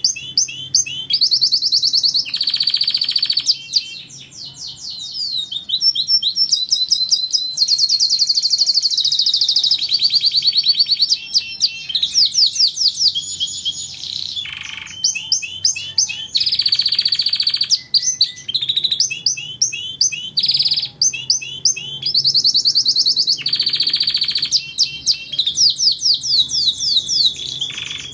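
Domestic canary singing: long phrases of fast trills and rapidly repeated high notes, with short pauses between phrases.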